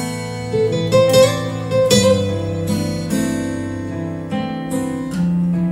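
Acoustic guitar song intro, plucked and strummed notes, played through a DIY speaker cabinet driven by a 741-circuit Class-AB amplifier.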